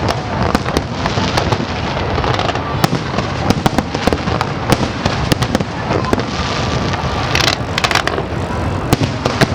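Fireworks display: a dense stream of sharp crackling bangs over a continuous low rumble of bursts, with a short rush of hiss about three-quarters of the way in.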